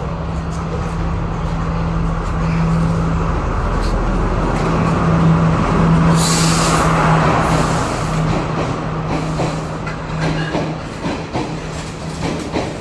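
Sri Lanka Railways Class S14 diesel multiple unit arriving, its diesel engine running with a steady low drone. A loud hiss of air about six seconds in fits the air brakes, and short clicks follow as it slows.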